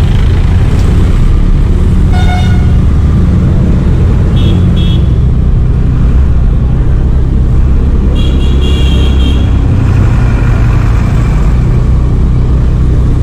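Steady low rumble of engine and road noise from a vehicle moving through town traffic, with vehicle horns honking: one about two seconds in, two short beeps a couple of seconds later, and a longer honk around eight seconds in.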